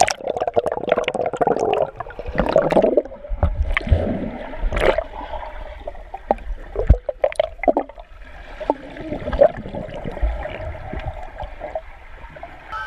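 Pool water heard through an action camera held under the surface: muffled gurgling and bubbling, with scattered sharp clicks and knocks as a swimmer moves beside it.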